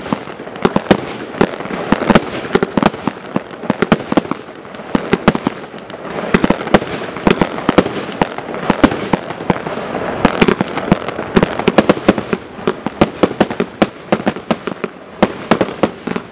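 Dominator American Pride 138-shot fireworks cake firing continuously: a rapid, unbroken string of shots and bursts, several a second.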